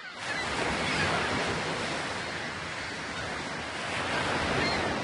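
Ocean waves washing in a steady rush of surf, which fades in at the start and swells twice.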